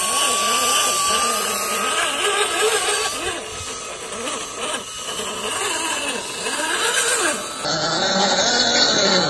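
Small electric motors of an MN86K RC crawler whining as the truck is winched and driven through deep mud, the pitch rising and falling again and again with the throttle. The sound changes abruptly about three-quarters of the way in.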